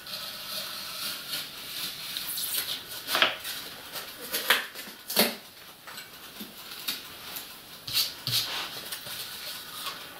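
Polystyrene foam pieces being pressed and rubbed against a foam-board base, squeaking and scraping, with a few sharper scrapes about three, four and a half, five and eight seconds in.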